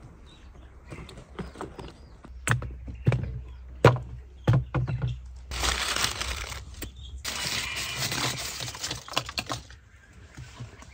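Fresh peppers and other vegetables handled in a woven straw basket: a few light knocks, then two long stretches of rustling, crackly handling noise.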